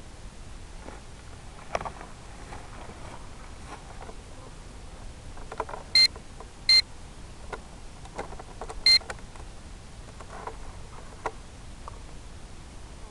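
Three short electronic beeps, the first two close together and the third about two seconds later, over a steady hiss with faint scattered clicks and rustles.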